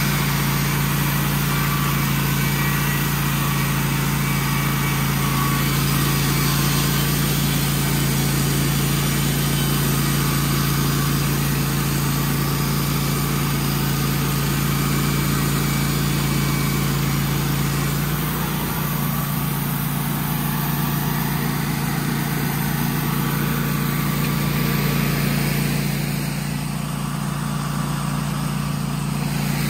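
Wood-Mizer portable band sawmill running steadily, its air-cooled engine under load as the band blade saws along a pine cant; the engine note shifts slightly about two-thirds of the way through.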